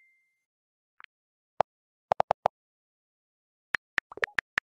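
Smartphone keyboard clicks: about ten short, sharp taps in irregular clusters, as someone types on the phone. The tail of a text-message ding fades out at the very start.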